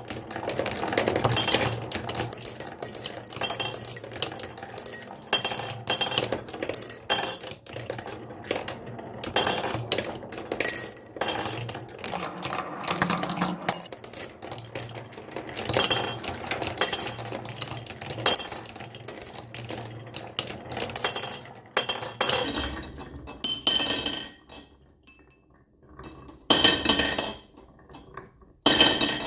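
Marbles clattering and rolling down a marble run: dense, rapid hard clicks and ringing clinks. The clicking thins out about 22 seconds in to a few short clusters of clicks separated by quiet gaps.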